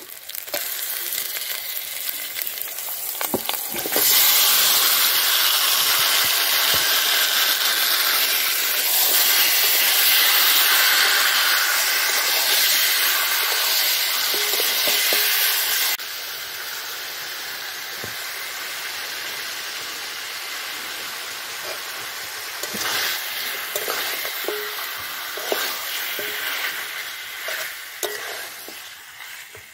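Marinated chicken pieces sizzling as they fry in hot oil and spice paste in a metal kadai, stirred with a spatula that scrapes and clicks against the pan. The sizzle turns much louder about four seconds in, then drops suddenly to a steadier, quieter sizzle a little past halfway.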